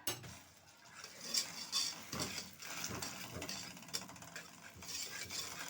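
A spoon stirring and scraping around a pot, working a spoonful of butter into golden caramelized sugar.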